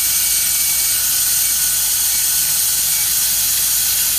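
Compressed air hissing steadily as it blows through a Ford 6.0 Power Stroke diesel's high-pressure oil system in an air leak-down test for a hot no-start; the air is escaping past a leaking injector, found to be number 5.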